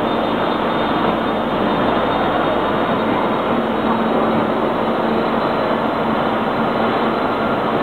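Steady running noise of an aluminium continuous casting and rolling rod line in operation, an even machine din with a low hum running through it.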